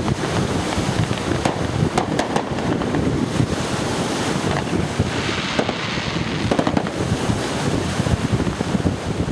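Wind buffeting the microphone, with scattered sharp pops from distant fireworks. A brief hiss comes in about five seconds in.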